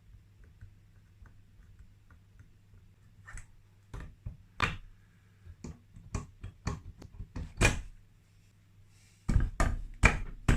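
Sharp metallic clicks and knocks of engine parts and hand tools being handled during two-stroke top-end assembly, faint at first, then louder and more frequent, with a burst of knocks near the end.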